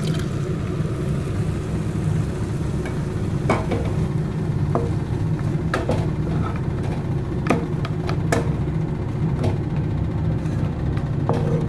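A spatula knocking and scraping against a non-stick frying pan of grated carrot, about seven sharp knocks spread over several seconds. A steady low hum runs underneath.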